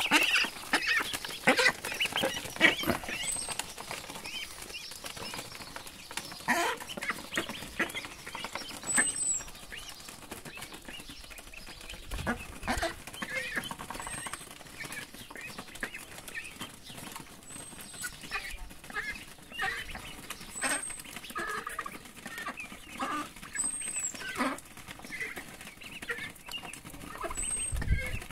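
A flock of ducklings and an adult duck feeding on poultry pellets: irregular pecking and bill taps, short calls mixed in, and a faint high chirp every few seconds.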